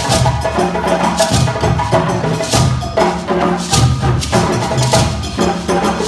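A group of djembe hand drums playing a steady, driving rhythm together, deep bass tones under dense strokes, with sharp accented strokes recurring about once a second.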